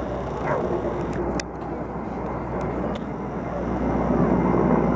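Helicopter flying past at a distance: a steady low drone of rotor and engine that grows a little louder near the end.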